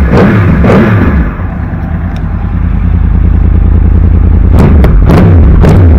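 2014 Yamaha YZF-R1's crossplane inline-four, breathing through an Akrapovic carbon muffler, blipped in quick throttle revs. It settles to a steady idle after about a second, then is revved again in rapid blips, about two a second, near the end.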